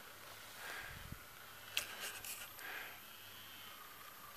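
Quiet outdoor ambience: a faint steady hiss, a brief low rumble of wind on the microphone about a second in, and a couple of soft clicks around two seconds in.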